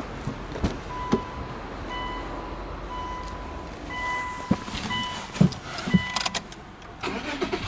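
Subaru Legacy's dashboard warning chime beeping about once a second while the driver's door stands open, mixed with sharp clicks and knocks from the key and door. The loudest knocks come in the second half.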